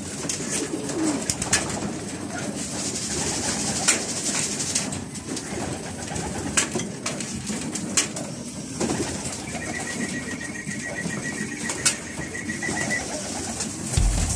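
Racing pigeons cooing in their loft, with several sharp clicks and taps. A rapid high-pitched trill runs for about three seconds past the middle.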